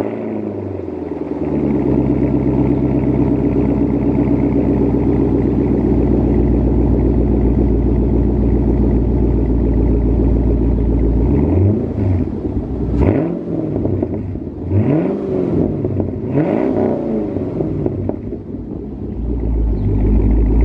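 Chevrolet Camaro SS's V8 idling steadily, heard at the exhaust. About halfway through it is revved four times, each rev rising and falling in pitch, and then it settles back to idle.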